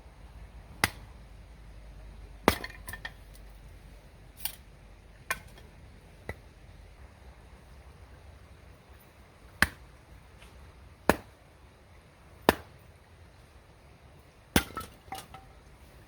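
A series of about nine sharp knocks, spaced irregularly one to three seconds apart, several with a short metallic clink ringing after them, the last few coming as a quick cluster near the end.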